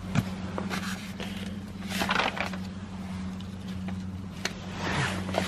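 Loose sheets of paper rustling and scraping as they are handled and shifted on a desk, in irregular bursts that are loudest about two seconds in and near the end, over a steady low hum.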